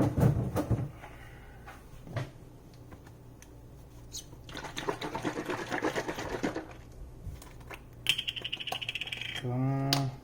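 Heavy cream being poured into a pan of sautéed garlic, with knocks and clinks of the pan and container and a dense patch of rapid crackling and pattering in the middle. A short voice sound comes near the end.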